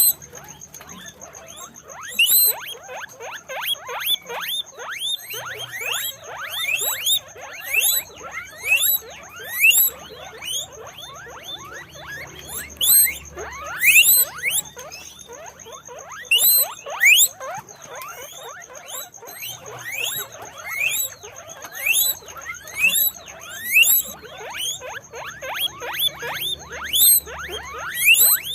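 Guinea pigs wheeking: runs of short, high, upward-sliding squeals repeated one after another, with overlapping calls at times.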